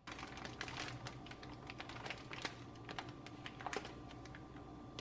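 Plastic zip bag full of individually wrapped candies being handled, the bag and wrappers crinkling with quick irregular clicks.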